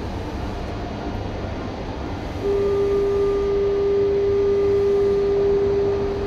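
Mexico City Metro train moving slowly along the platform with a low steady rumble. About two and a half seconds in, a loud steady tone of one pitch starts and holds for about four seconds.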